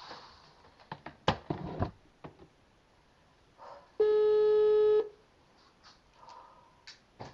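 Telephone ringback tone heard down the line while a call connects: one steady beep about a second long. A cluster of clicks and knocks on the line comes before it, about a second in.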